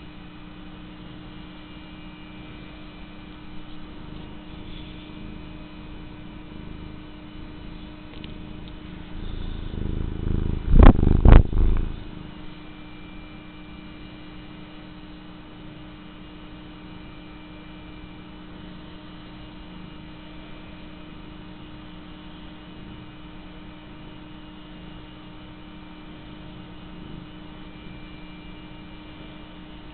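Domestic cat purring steadily while being stroked. About ten seconds in, a loud low rubbing burst with two sharp clicks stands out above the purr.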